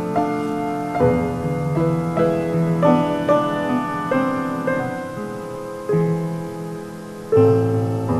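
Piano playing slow, sustained chords, a new chord struck every second or so and a louder one near the end: the piano's closing passage after the song's last sung line.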